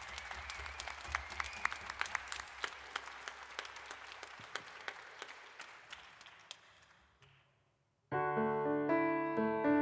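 Audience applause that thins out and dies away over about seven seconds. After a brief hush, a stage keyboard with a piano sound comes in about eight seconds in, playing sustained chords.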